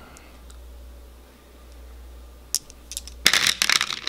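Glass marbles clicking against each other and a plastic tray as a hand sets them into it: a single click about two and a half seconds in, then a quick run of clicks near the end.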